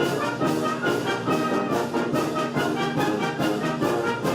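Orchestra with a strong brass section, trumpets and trombones, playing a brisk piece of quick, rhythmic notes.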